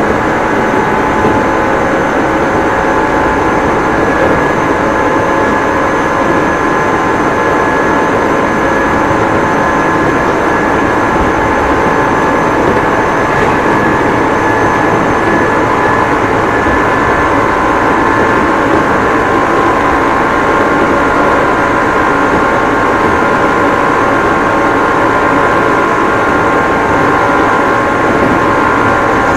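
Interior running sound of an Odakyu 9000 series electric train at speed between stations: a steady rumble of wheels on rail, with steady whining tones from the running gear on top.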